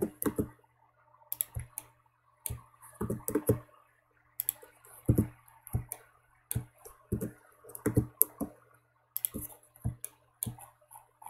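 Computer mouse and keyboard clicks at irregular intervals, singly and in quick clusters, over a faint steady low hum.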